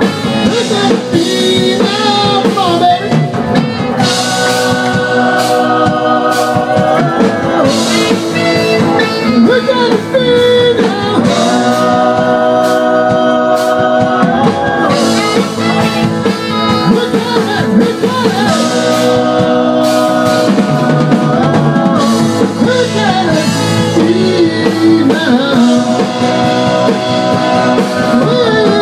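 Live band playing, with singing over guitar and drums, loud and continuous.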